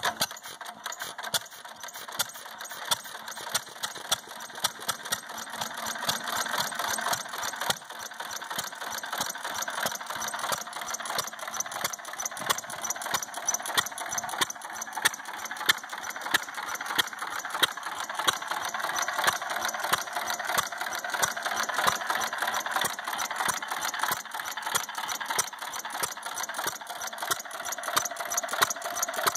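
1932 McCormick-Deering Model M hit-and-miss stationary engine running, a steady rapid clicking of its valve gear with louder beats every second or so.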